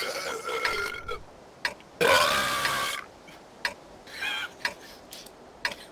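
A man's loud burps, brought up by a fizzy drink. A long one trails off about a second in, a second lasts about a second from near the two-second mark, and a shorter one follows near four seconds.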